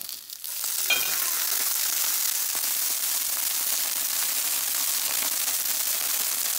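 Water splashed into a hot, oiled cast iron skillet of fresh green garbanzo beans. About a second in it sets off a steady sizzle and hiss as the water flashes to steam, cooling the pan and steaming the beans.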